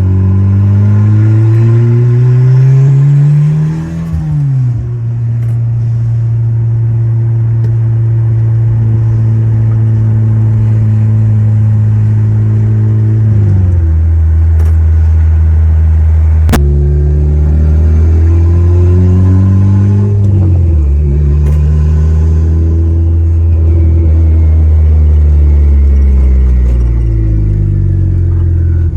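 Turbocharged Acura RSX's K20 four-cylinder engine accelerating through the gears: the engine pitch climbs, then drops sharply at each upshift, about four times, with a steady-speed stretch in the middle. A single sharp click sounds a little past halfway.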